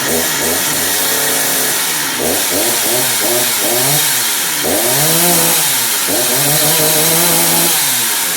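McCulloch MS2050AV 50cc two-stroke chainsaw engine running just after starting, revved up and down several times and held high for a couple of seconds near the end. The saw starts and runs after its choke lever has been repaired.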